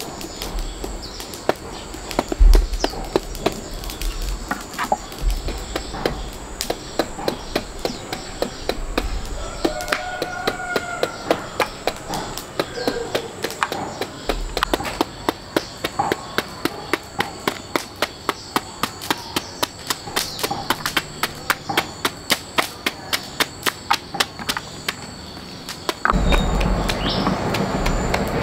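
Repeated sharp knocks at a steady pace of about three a second, with a few deeper thuds in the first half. Near the end, a louder steady noise comes in over them.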